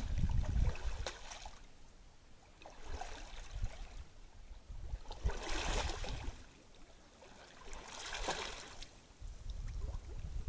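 A moose wading through shallow water, its slow steps splashing about four times, one every two and a half seconds or so.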